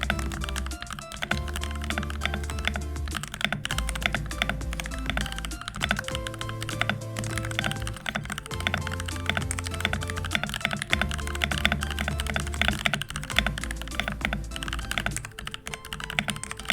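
Fast typing on a mechanical keyboard fitted with POM keycaps on NK Silk Black linear switches: a dense run of smooth, deep key strokes. Background music with a steady bass line plays under the typing.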